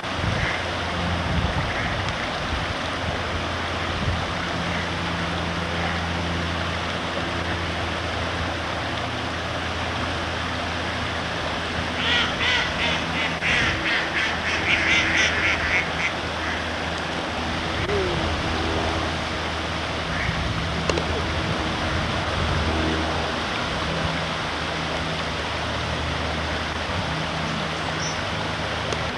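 Steady rush of water spilling through a water mill's sluices, with a run of rapid duck quacking about halfway through.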